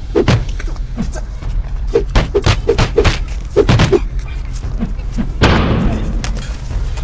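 Fight-scene punch and kick hits: a quick run of sharp thuds and smacks, about a dozen in the first four seconds, then a longer rushing burst about five and a half seconds in.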